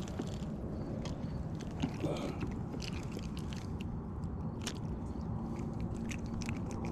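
Scattered small clicks and scrapes of fishing gear being handled while a small hooked fish is brought in, over a steady low rumble.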